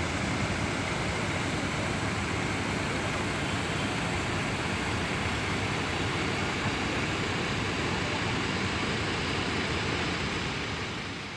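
Steady bus terminal noise: bus engines running and traffic, fading out near the end.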